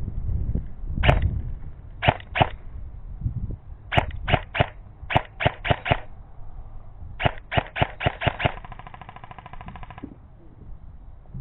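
Airsoft guns firing: single shots in quick groups of two to seven, then a rapid full-auto burst lasting about a second and a half near the end.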